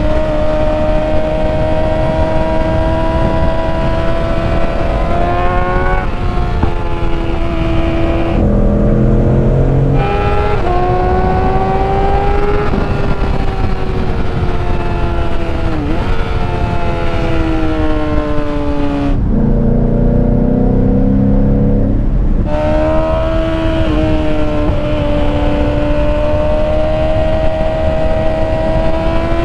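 A vehicle engine running hard at speed, its pitch climbing, dropping and climbing again several times as it accelerates, changes gear and eases off, over a steady rush of wind.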